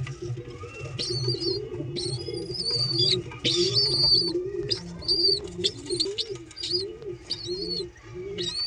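A pigeon squab begging while an adult pigeon feeds it bill-to-bill: short high-pitched squeaks repeating about once a second over a low, rhythmic pulsing warble.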